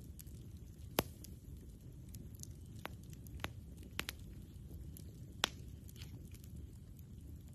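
Campfire crackling: about half a dozen sharp pops and snaps of burning wood, the loudest about a second in, over a low steady rumble.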